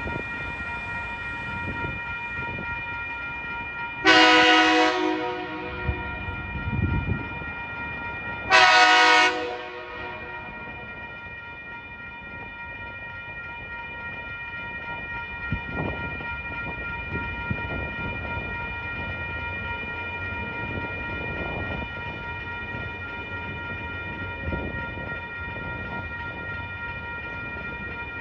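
Diesel locomotive TR16's horn sounding two short blasts about four seconds apart as it approaches a level crossing. A steady high ringing from the crossing's warning bell and the low rumble of the oncoming train run underneath.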